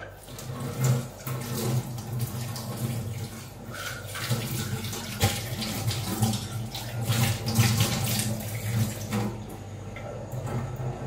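Tap water running into a sink and splashing unevenly.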